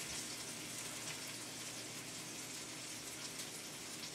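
Pork chops sizzling steadily in a frying pan, an even, soft hiss.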